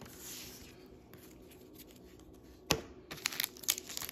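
Trading cards sliding against one another in the hand, then a single sharp tap as the card stack is set down on the table. From about three seconds in comes the dense crinkle of a foil booster-pack wrapper being handled.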